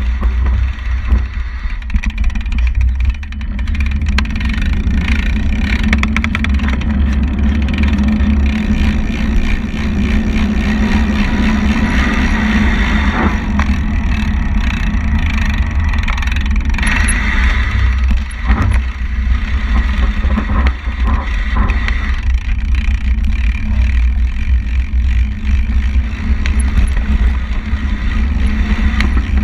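Wind buffeting the camera microphone with a steady low rumble, and the rattle and clatter of a mountain bike riding fast over rough forest ground and grass.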